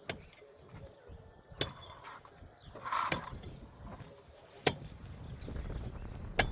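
Sharp clicks or knocks, five of them evenly spaced about a second and a half apart, over a faint low rumble.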